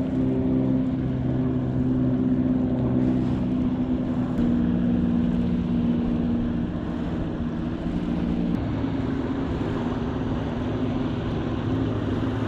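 Motorboat engine running as the boat passes on the lake: a steady drone whose pitch shifts a little twice.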